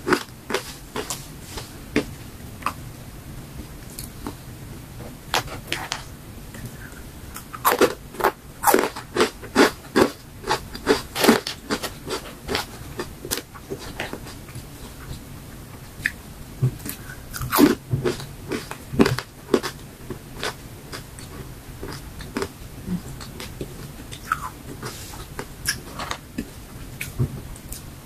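Crunching and chewing of crisp dried fruit and vegetable chips: sharp crackling crunches coming in dense runs a few times, with sparser chewing between.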